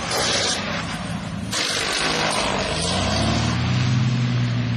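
Two bursts of rushing noise, then a low engine drone that rises slightly and holds steady.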